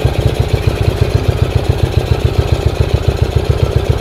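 Freshly overhauled Yamaha SRX motorcycle engine running at low revs with a steady, even rhythm of exhaust pulses. It is being run in gently after the rebuild, not revved hard.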